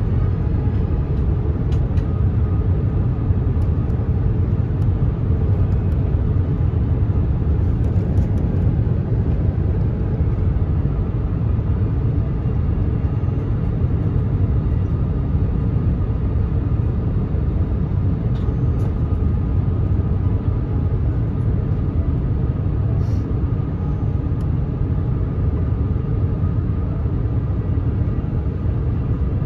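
Airbus A350 airliner cabin noise on the approach: a steady low rumble of engines and rushing air with no breaks.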